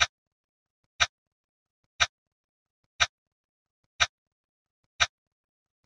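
Countdown timer's tick sound effect: a sharp clock-style tick once every second, six in all, with silence between.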